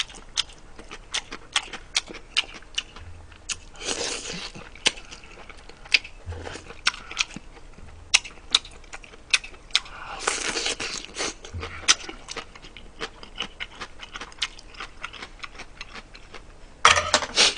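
Close-miked chewing: a man eating braised pork ribs and rice, wet mouth clicks and smacks several times a second, with two longer noisy stretches about four and ten seconds in.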